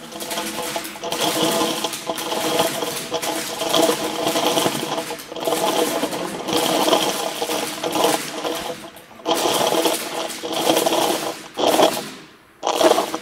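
Plastic snack bag of corn puffs crinkling and scraping against the inner rubber of a tyre as it is pushed inside by hand, in uneven bursts with a short pause near the end.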